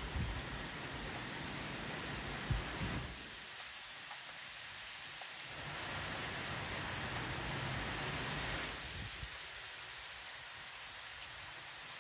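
Steady hiss of rain during a thunderstorm, swelling for a few seconds in the middle, with a few low thumps on the microphone near the start.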